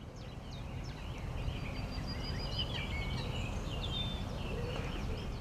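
Woodland birdsong: several birds chirping and warbling in quick, varied phrases over a steady low rumble, swelling up over the first second.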